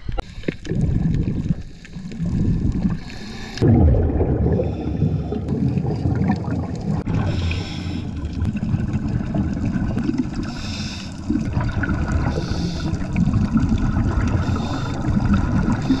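Water churning and bubbling around scuba divers going down from shore: a muffled, rumbling wash that gets louder about three and a half seconds in, with short bursts of bubbling hiss every couple of seconds.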